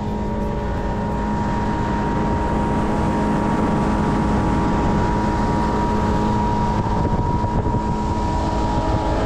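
Chrysler 100 hp two-stroke outboard running steadily at planing speed, holding an even pitch, over a rush of wind and water.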